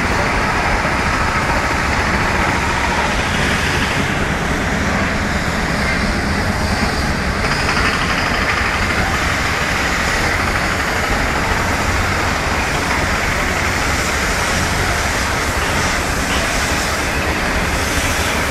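Steady rushing background noise with a constant deep rumble underneath and no distinct events: the open-air hubbub of a large crowd of pilgrims walking.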